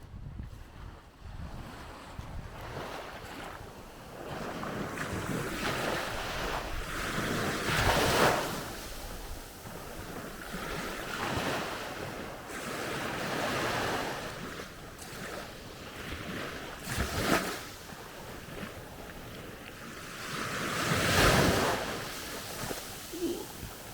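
Strong, gusty wind surging and easing in waves, buffeting the microphone; the strongest gusts come about eight seconds in and near the end.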